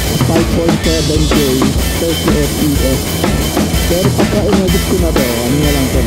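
Background music with a drum kit keeping a steady beat under a moving melody line.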